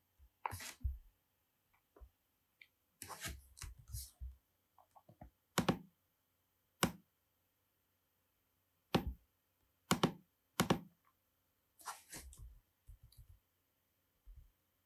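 Irregular clicks and taps of a computer mouse and keyboard, about ten in all, spaced a second or so apart.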